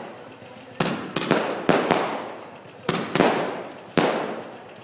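Aerial fireworks bursting overhead: about seven sharp bangs in irregular bunches, each dying away over about a second.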